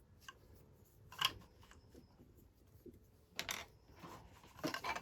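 Handling of 3D-printed plastic mold halves: faint rubbing and scraping with a few sharp plastic clicks, the loudest about a second in and near the middle.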